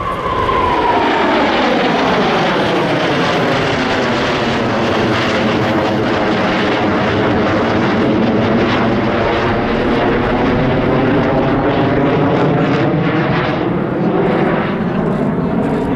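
Jet fighters of the August 1st Aerobatic Team, J-10s, making a low pass with a loud, steady jet roar. A whine falls sharply in pitch over the first couple of seconds, and the roar then sweeps slowly through shifting tones that rise again near the end.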